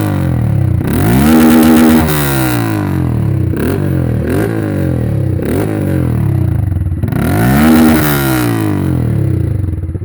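Honda CG 160 Titan's single-cylinder four-stroke engine revving through an aftermarket Roncar aluminium SS round exhaust. A long rev is held high and drops back about two seconds in, followed by a few short throttle blips, then another big rev, and it settles to idle near the end.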